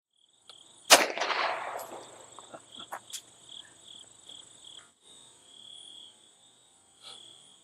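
A single 9 mm Glock 17 pistol shot about a second in, sharp and loud with an echoing tail lasting about a second, followed by a few faint clicks. A faint, steady, high-pitched chirping runs underneath.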